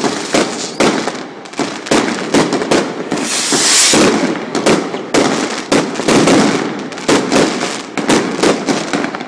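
Aerial fireworks going off in quick succession: an irregular string of bangs and cracks, with a stretch of hissing crackle about three and a half seconds in.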